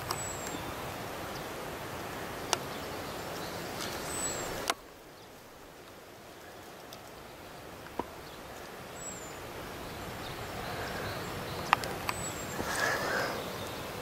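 Steady rushing of distant surf on rocks, with a short high falling chirp every few seconds and a few sharp clicks. The rushing drops suddenly a little under five seconds in, then slowly swells back.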